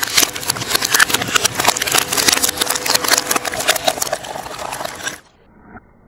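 Twin-shaft metal shredder running, its blades crunching through material with a dense, loud crackle of many small clicks. The sound cuts off abruptly about five seconds in, leaving only a faint low noise.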